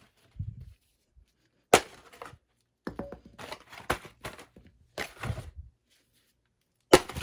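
A cardboard box being torn apart and crushed by hand: a soft thud, then a series of sharp crunches and rips, the loudest about two seconds in and near the end.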